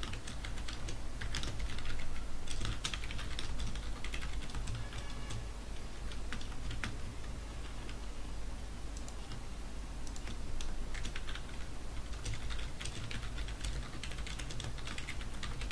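Typing on a computer keyboard: runs of quick key clicks separated by short pauses.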